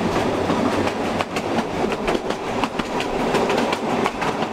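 Inside a carriage of a narrow-gauge passenger train on the move: a steady running rumble with many short, irregular knocks and rattles from the wheels on the track and the shaking car.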